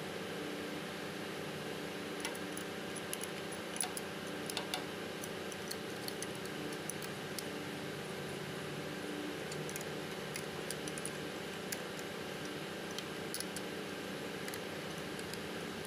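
Scattered light metallic clicks and clinks of a ratchet wrench and steel knife being worked on a thickness planer's cutterhead while the knife is set and its clamp bolts tightened, over a steady hum.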